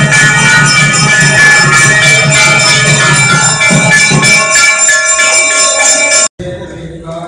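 Temple puja bells ringing loudly and continuously, with a low rhythmic beating under them. The sound cuts off abruptly about six seconds in, leaving a much quieter background.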